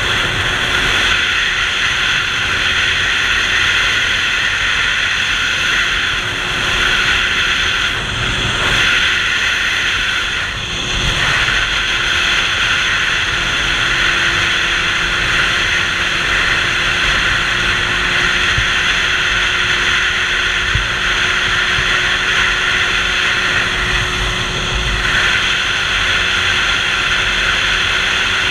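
Sport motorcycle cruising at steady highway speed: wind rushing over the helmet-mounted camera's microphone, with the engine's steady drone beneath.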